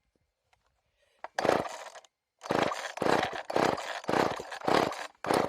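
Homelite Super 2 two-stroke chainsaw being pull-started over and over: one pull of the recoil starter rope, then a quick run of about six more pulls, each about half a second of rope and cranking, and the engine does not catch after its low-speed mixture screw was turned richer.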